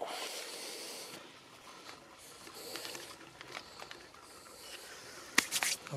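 Footsteps and rustling in grass, with a few sharp clicks about five and a half seconds in.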